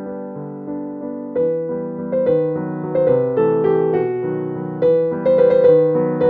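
Background piano music: single notes struck and fading over held chords, the melody growing busier and louder about a second and a half in.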